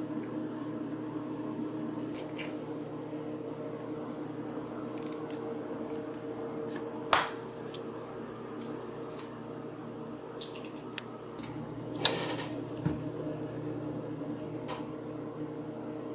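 Eggs cracked and separated over glass measuring jugs: a few sharp knocks and taps, the loudest about seven and twelve seconds in, with smaller ticks between. Under them is a steady mechanical hum of a kitchen appliance or fan.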